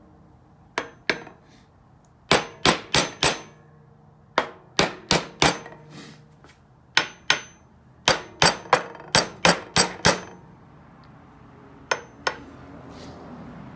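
Hammer tapping on the steel rocker arms of a 430 MEL engine's rocker shaft to work rust-seized rockers loose. Sharp, ringing metal strikes come in quick runs of two to eight, with short pauses between.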